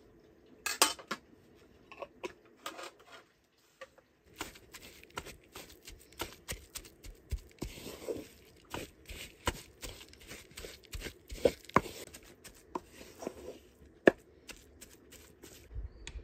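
Clatter of objects being handled: irregular clinks and knocks, a few a second, with a short break a little after three seconds in.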